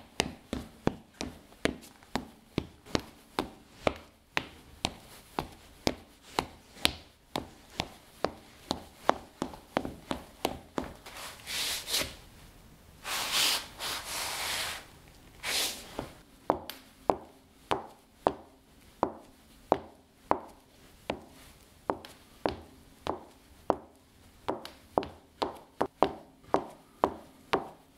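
Footsteps on ceramic floor tiles, stepping in place at about two steps a second, first in boots and later in sneakers. Around the middle there are a few longer scuffs of soles scraping across the tiles.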